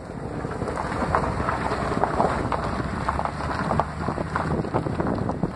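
A truck running at low speed, with wind buffeting the microphone and many small crackles over a low steady hum.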